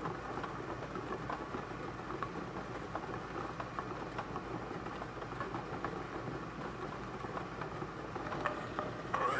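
Bingo ball blower running: a steady rush of air with plastic balls clicking and rattling against each other, and a louder clatter near the end.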